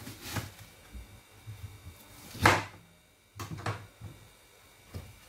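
Knife cutting an onion on a chopping board: a handful of separate knocks, the loudest about halfway through.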